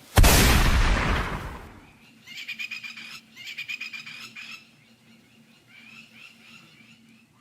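A single rifle shot with a long rolling echo, then a bird's fast chattering call in two bursts, with fainter calls afterwards.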